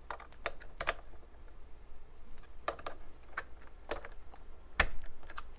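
Irregular sharp clicks and taps as a 1/8 inch twist drill is fitted into a lathe tailstock's Jacob's chuck and the chuck is tightened, with one louder clack near the end.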